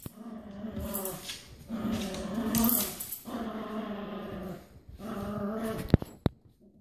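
Dogs growling in a tug-of-war over a rope toy, in stretches of about a second each with short breaks between them. Two sharp clicks come near the end.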